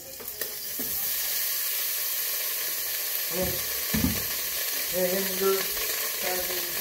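Drained ground beef sizzling in a hot pot, a steady hiss that starts as the meat is tipped back in from the colander. Two dull knocks about halfway through.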